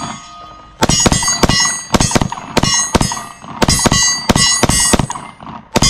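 A Gen 5 Glock 29 10mm pistol fired in a rapid, uneven string of about a dozen shots, starting about a second in, with a pause before the last shot near the end. Each hit on the steel target rings out with a metallic clang.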